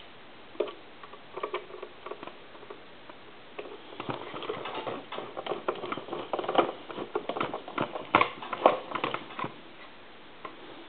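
Screwdriver driving a screw into the back panel of a wooden wall telephone: irregular small clicks and scrapes, sparse at first and busiest from about four seconds in until near the end.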